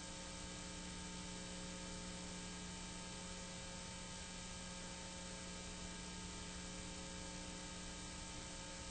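Steady electrical mains hum made of several held tones over a faint hiss, unchanging throughout.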